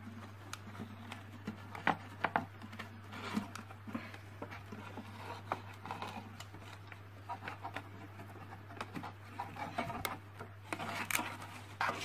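Thin clear plastic container being handled and tipped, giving scattered light clicks, taps and crinkles at irregular intervals over a steady low hum.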